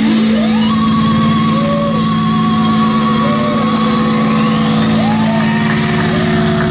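Electronic synthesizer drones and pitch glides over a noisy wash: a tone slides up in the first second and holds as a long wavering note above a steady low hum, with smaller swooping tones later on. No drumbeat.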